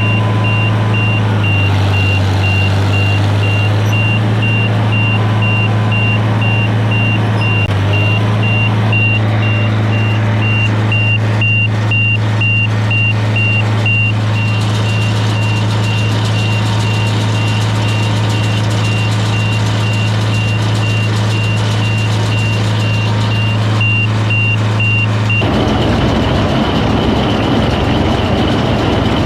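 Tractor engine running steadily, a deep even drone with a thin high whine over it. About 25 seconds in, the sound turns rougher and noisier.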